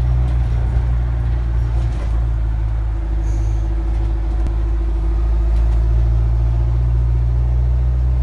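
GM Scenicruiser bus's two-stroke Detroit Diesel engine idling steadily, with a short faint hiss about three seconds in.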